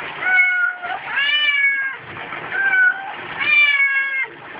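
A domestic cat yowling: four long, drawn-out meows, one after another, each about a second long except a shorter third one.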